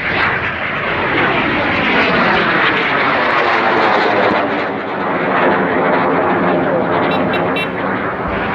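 Loud, steady jet-engine roar of an aircraft passing overhead, starting abruptly and holding level without fading.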